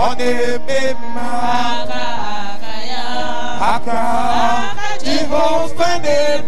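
A woman chanting a worship song into a microphone, holding long, wavering notes over a steady musical backing.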